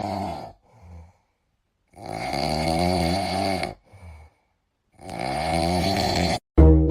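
Snoring: a long snore about every three seconds, each followed by a short, fainter breath.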